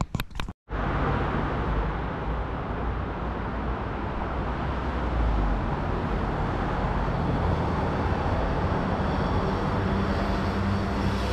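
A few footsteps, then after a break a loud, steady motor-vehicle engine running close by: a low rumble with a hum that grows clearer near the end.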